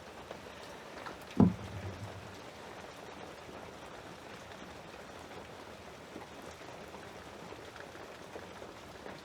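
Steady hiss of heavy rain falling outside, with one sharp knock about a second and a half in.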